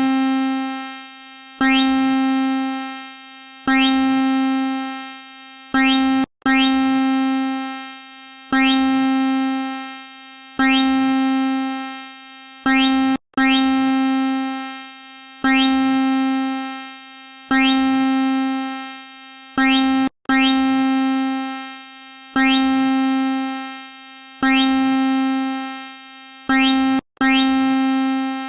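Electronic emergency-alert alarm tone: a single low synthesized note struck about every two seconds, each strike starting sharply with a quick rising zip and fading away. The pattern loops, breaking off for an instant about every seven seconds before starting again.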